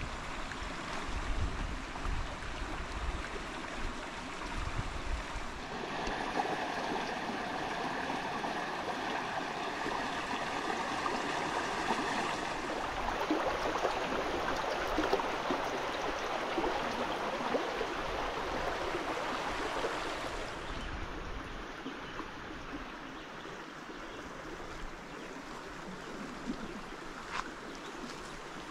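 Shallow creek water rushing and rippling over rocks, a steady noise. It grows louder a few seconds in and drops to a softer flow about two-thirds of the way through.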